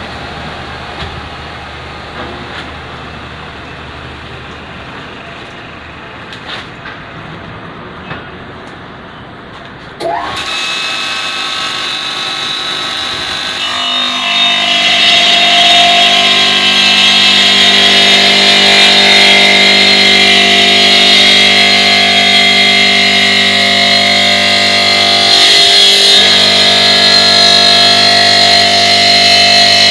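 CNC stone bridge saw cutting a stone slab with its water-cooled circular blade. A quieter machine hum is followed, about ten seconds in, by a sudden rise with a quick upward whine as the blade drive speeds up. From about fourteen seconds the blade is in the cut, giving a loud steady whine with a harsh high hiss.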